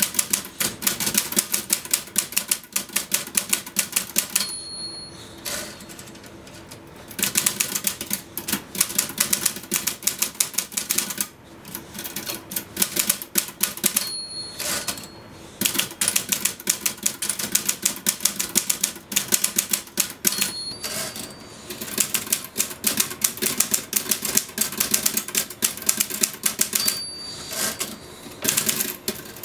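Manual typewriter typed fast in long runs of rapid keystrokes. About four times a short high bell rings at the end of a line, followed by a brief lull before the typing picks up again.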